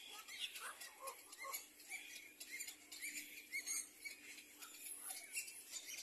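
Little black cormorant nestlings calling from the nest: faint, short, high squeaky chirps, several a second.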